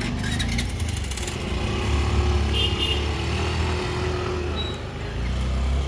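Busy street traffic: motorcycle and auto-rickshaw engines running in a steady low hum under a general street din, with a short high tone about halfway through.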